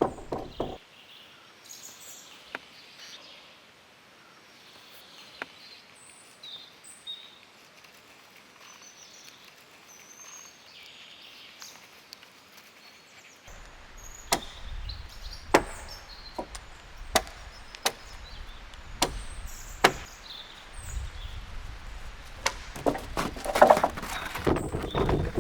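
Sharp knocks: one at the start, then from about halfway a run of them roughly once a second over a low rumbling noise, thickening into a busier clatter near the end. Faint high chirps come in the quieter stretch between.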